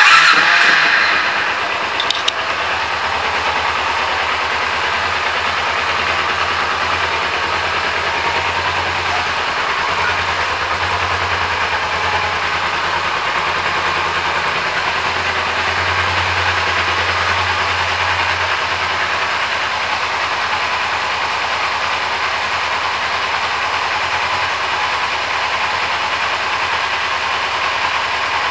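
2005 Kawasaki Ninja 250R's parallel-twin engine fires up suddenly, runs louder for a second or two, then settles into a steady idle.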